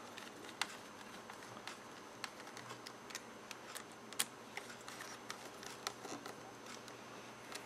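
Light, uneven clicks and ticks, about two a second, from a small hand tool working at the hinge corner of a Dell Latitude D430 laptop while it is reassembled.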